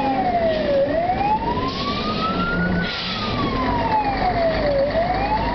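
Fire engine siren wailing, its pitch rising and falling slowly, about two seconds up and two seconds down, over the engine and road noise of the moving truck.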